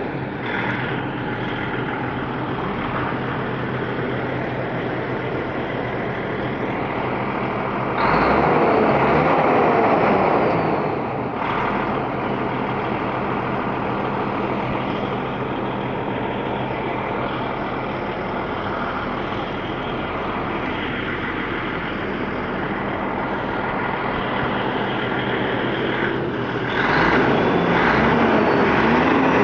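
DAF XF 530 truck's diesel engine running steadily, revved up twice: for about three seconds, some eight seconds in, and again near the end.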